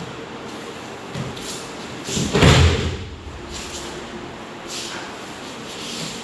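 One heavy thump about two and a half seconds in: a person thrown in an aikido breath throw (kokyu-nage) landing on the training mat. Fainter, shorter rustles come before and after it.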